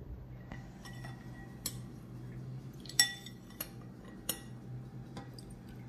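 Metal teaspoon stirring warm liquid jelly in a glass bowl, clinking against the glass several times, loudest about three seconds in, as strawberry jelly crystals are dissolved in warm water. A low steady hum runs underneath.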